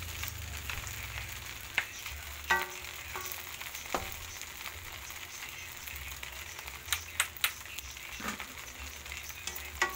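Garlic fried rice (sinangag) sizzling steadily in a metal wok while a wooden spatula stirs it, scraping and knocking against the pan about eight times; a few knocks ring briefly.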